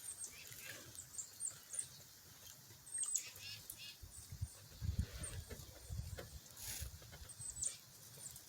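Faint, high, thin bird chirps, short downward-sliding notes repeated irregularly throughout. Low rumbling bumps come and go in the middle.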